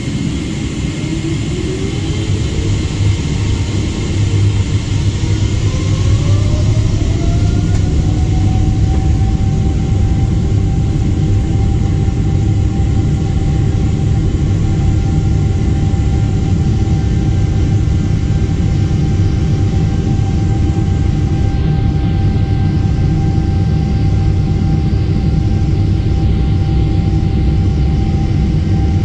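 Boeing 777-300ER's GE90 turbofan engine heard from inside the cabin: a low rumble with a whine that rises in pitch over the first several seconds as the engine spools up, then holds one steady tone.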